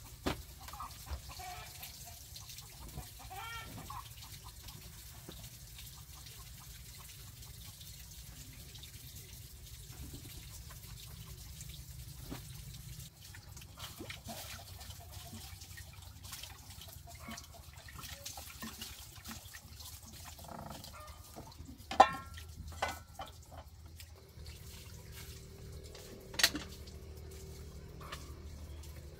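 Hands washing in a plastic basin of water: sloshing and splashing, with scattered small clicks and two sharp knocks, one about three quarters of the way through and one near the end.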